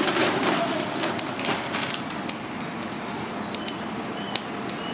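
Lump charcoal on a grill crackling as it catches, with scattered sharp pops over a steady hiss that is stronger in the first couple of seconds.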